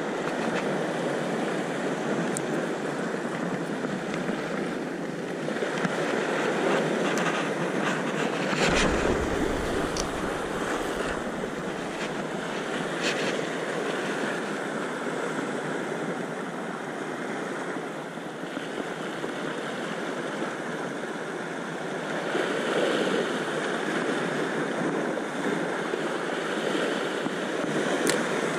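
Sea surf washing steadily over shoreline rocks, with a few faint ticks partway through.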